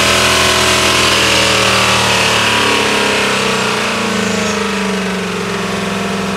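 GMC Sierra pickup's engine held at wide-open throttle with no load, its crankcase filled with laundry detergent instead of oil. It runs steadily at high revs, easing off slightly about four seconds in.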